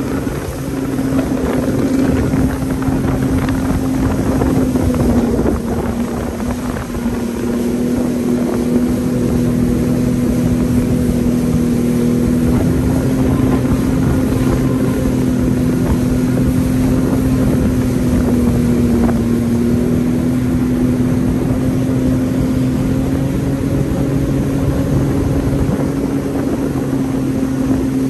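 Jet ski engine running at a steady cruising speed, its drone picking up in the first second or two and dipping slightly a couple of times after that.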